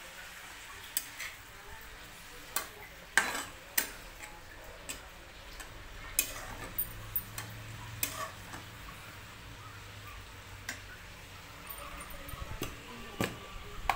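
Irregular light clicks and knocks of kitchen utensils and containers being handled, the loudest a little over three seconds in.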